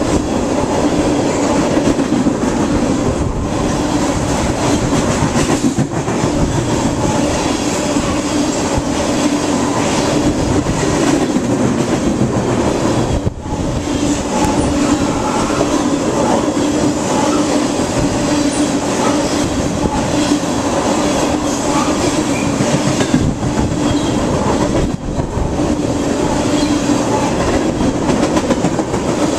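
Freight train of tank cars passing close by: a loud, steady rumble and clatter of steel wheels on the rails.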